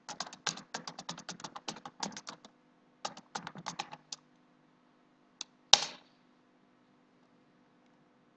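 Computer keyboard keys clicking as a terminal command is typed in quick bursts. After a short pause comes one more keystroke and then a single louder key strike about six seconds in, the Enter key submitting the command.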